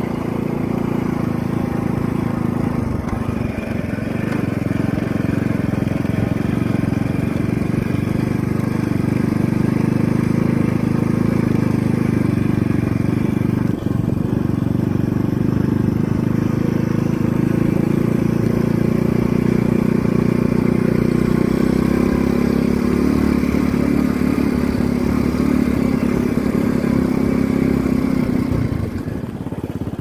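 Motorcycle engine running steadily at riding speed, with slight rises and falls in pitch, easing off near the end.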